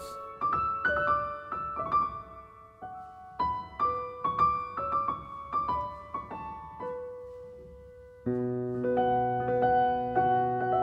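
Solo grand piano playing a slow, quiet melody of single notes. About eight seconds in, a fuller and louder passage enters, with held bass notes under chords.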